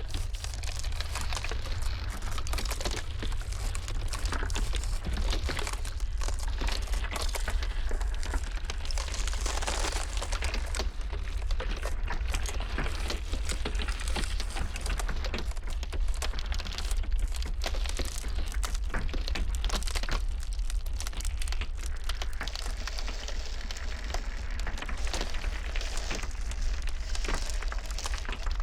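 Ice cracking and crackling continuously, a dense run of small snaps, over a steady low rumble.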